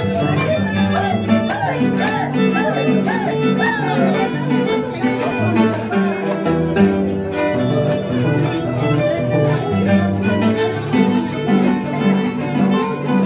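Live Andean string music: a violin plays a melody with wide vibrato over an Andean harp plucking a steady pattern of low bass notes.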